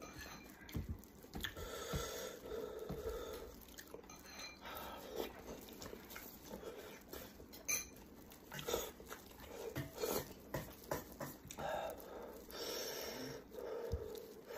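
Close-up mouth sounds of a person eating sheep's head meat: wet chewing and smacking, with many short clicks and smacks as gloved hands tear the meat apart.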